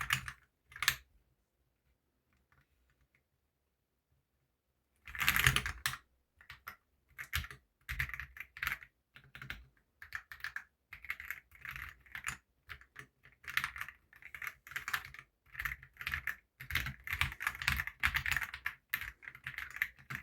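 Typing on a Keychron Q1 Ultra 8K aluminium-case mechanical keyboard with factory-lubed Silk POM switches: a few keystrokes, a pause of about four seconds, then a quick flurry about five seconds in and steady irregular typing after that.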